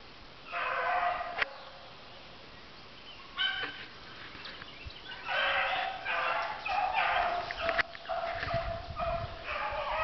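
Hunting dogs baying as they run a rabbit's trail: a string of drawn-out bays, up to about a second each, coming closer together in the second half.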